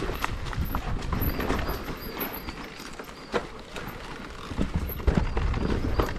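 Mountain bike riding over a rough woodland trail: tyre and wind rumble with scattered knocks and rattles from the bike over bumps. The rumble eases in the middle and builds again near the end.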